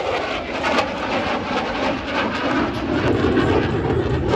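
Jet engine noise from an F-16 flying its air show display: a continuous rushing rumble that builds in the low end toward the end.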